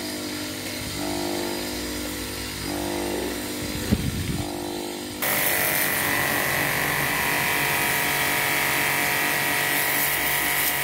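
Mini pressure washer with a freshly rewound motor running on test: a steady motor hum, with a few short knocks about four seconds in. About five seconds in, the hiss of the high-pressure water jet from the spray gun comes in loudly over the motor.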